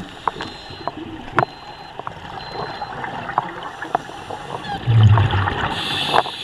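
Underwater sound around a scuba diver: breathing through the regulator with bubbles gurgling, and scattered sharp clicks. A loud low rumble comes about five seconds in, and a hiss near the end.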